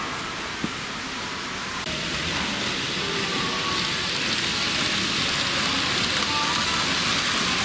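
N gauge model electric train running on curved track: a steady hissing rumble of wheels and motor that grows louder about two seconds in as the train comes past close by. One short click a little under a second in.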